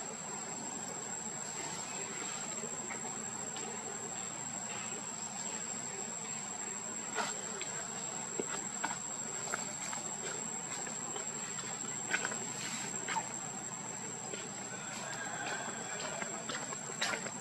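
A steady, high-pitched insect chorus holding one tone, over a low background hiss. Scattered light clicks come through it, a few louder ones near the middle and near the end.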